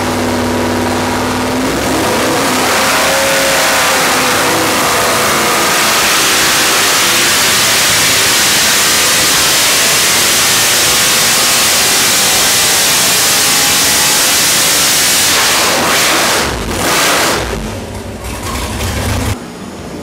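Four-barrel carbureted, naturally aspirated 454 cubic-inch LSX V8 making a full-throttle dyno pull. It runs steadily at first, then the revs climb for a few seconds and hold at high rpm. Late on it comes off the throttle with one brief rev, then falls away suddenly near the end.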